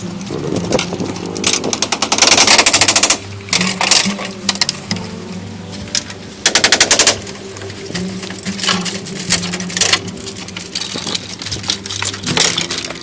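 Two loud bursts of very fast, even rattling, like a powered tool hammering, about two seconds in and again about six and a half seconds in, over background music with a steady low tone.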